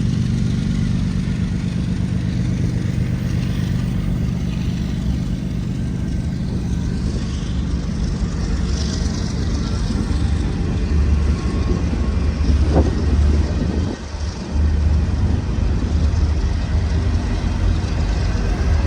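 CN freight train pulling out and rolling by slowly, with a steady low diesel locomotive drone and the rumble of the cars. The sound dips briefly about three quarters of the way through.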